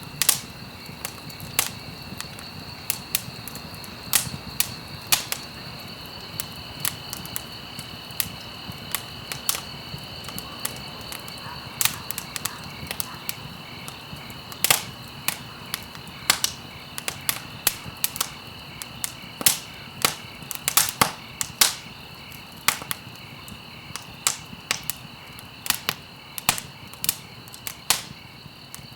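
Campfire crackling: irregular sharp pops and snaps, several a second, over a low hiss of burning, with a faint steady high-pitched tone underneath.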